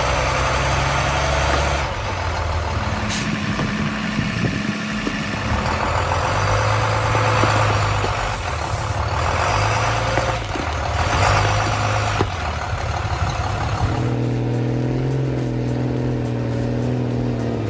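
A bus's engine running under load as it pulls on a tree, its pitch shifting every few seconds.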